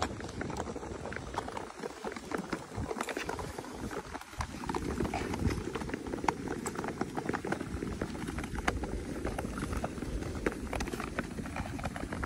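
Nordic touring skate blades gliding and scraping over clear black lake ice, with the metal tips of ski poles clicking on the ice in an irregular run of sharp ticks.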